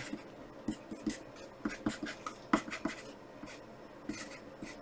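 Pencil writing on graph paper: faint, irregular scratches and light taps of the lead as letters and bond lines are drawn.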